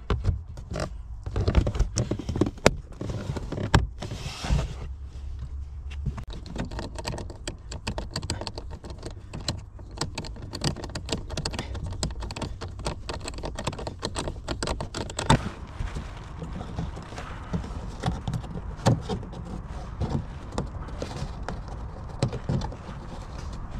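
Close handling noise of hands and a screwdriver working on a car's plastic trim panels: irregular clicks, taps and light plastic rattles over a low rumble.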